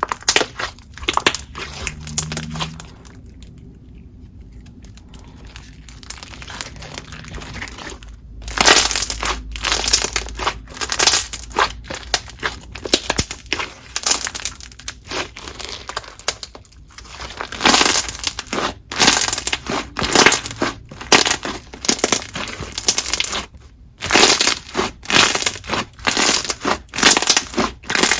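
Glossy, clicky slime being squeezed, poked and stretched by hand, giving rapid runs of wet clicks and bubble pops, with a quieter spell about three seconds in.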